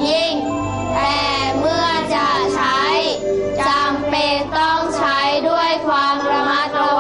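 Children singing a melodic song over musical accompaniment.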